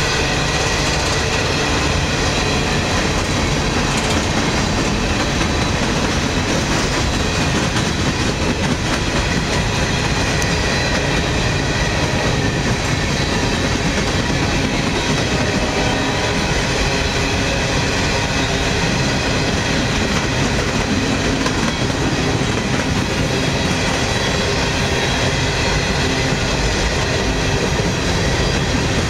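CSX freight train of open-top hopper cars rolling steadily past at trackside: the continuous noise of steel wheels on the rails and the passing cars.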